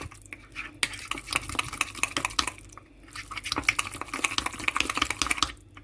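Spoon stirring thick cake batter in a mug: rapid clicks and scrapes of the spoon against the mug's sides, with a short pause about three seconds in.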